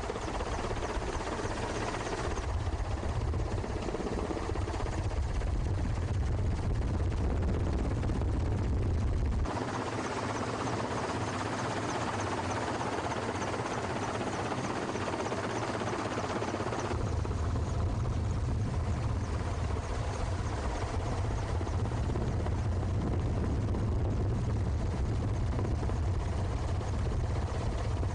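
Steady drone of a helicopter's rotor and engine. For several seconds in the middle the low rumble drops away, leaving a thinner midrange noise, then it comes back.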